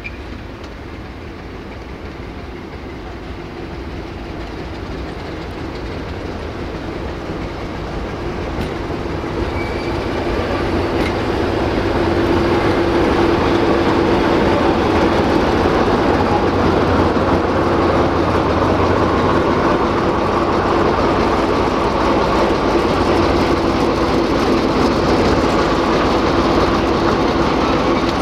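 Diesel-electric locomotive approaching and passing close by, its engine hum growing louder over the first dozen seconds and then holding steady as the train rolls past, with wheels clacking over the rails.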